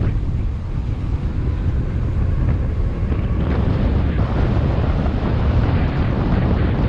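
Wind buffeting the microphone of a camera on a moving bicycle: a steady, loud low rumble.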